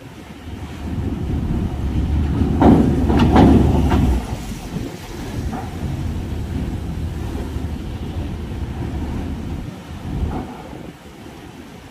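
Vehicles rolling off a ferry across its steel ramp and linkspan: a low rumble with a cluster of clanks from the steel plates as wheels cross, loudest about three seconds in. A smaller clank follows near the end.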